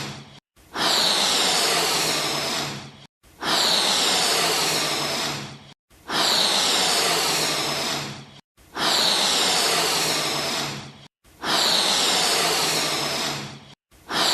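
Balloon being inflated, as a looped sound effect: a burst of rushing air about two and a half seconds long, repeated about five times with short gaps between.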